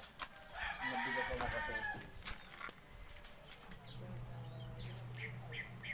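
A rooster crowing once, about half a second to two seconds in. A faint low steady hum follows from about four seconds in.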